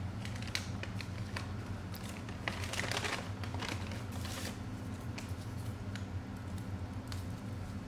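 Whataburger paper bag being unrolled and opened: crinkling, rustling paper with small clicks, loudest about three seconds in, over a steady low hum.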